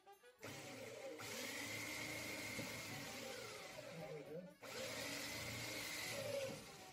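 Handheld electric drill boring into a small metal part, its motor whining steadily under load. It runs about four seconds, stops briefly, then runs again for about two seconds.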